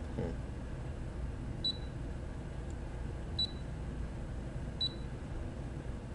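Three short high beeps from a Brother embroidery and sewing machine's touch panel as its keys are pressed to type in a name, about one and a half seconds apart. A low steady hum runs underneath.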